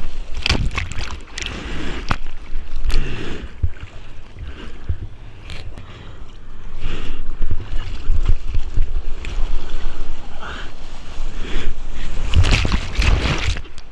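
Ocean surf water splashing and sloshing close up, in irregular gushes over a steady low rumble, with louder spells in the middle and near the end.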